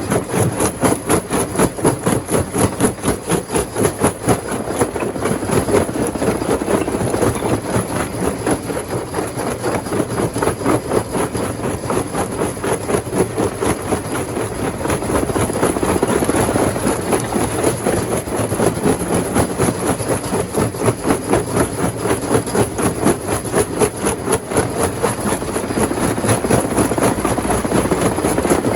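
Heavy rock-crushing machinery running steadily, with an even pulsing of about three beats a second.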